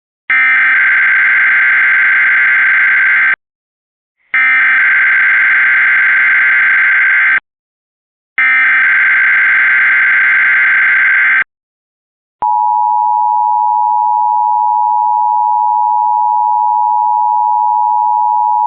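Emergency Alert System (EAS) test opening: three bursts of shrill digital data tones, the SAME header, each about three seconds long with short pauses between. About a second after the last burst, the steady two-tone EAS attention signal (853 and 960 Hz) begins and holds.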